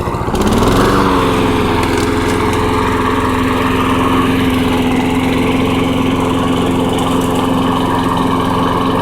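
Lawn tractor engine revving up from idle within the first second, then held steady at high throttle. It is running on a freshly rebuilt carburetor.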